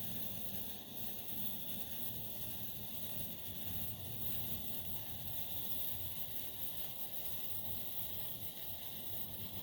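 Fluorescent Blue sparkler burning with a steady hiss, over a low rumble of outdoor air on the microphone.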